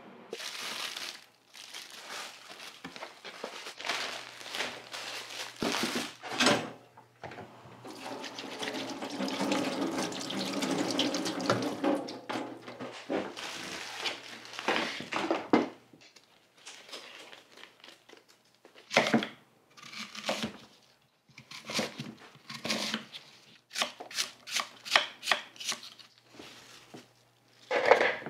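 Kitchen prep sounds: scattered clatters of things being handled, then a steady rushing noise for several seconds, then a kitchen knife chopping apples on a wooden cutting board in a run of irregular knocks.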